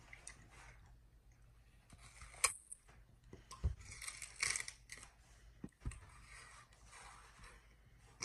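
Chimpanzee biting and chewing watermelon: irregular wet smacking and clicking mouth sounds, with louder bursts about two and a half and four and a half seconds in.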